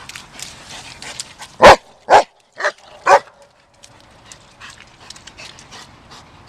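A German Shepherd dog barking four times in quick succession, about half a second apart, then falling quiet.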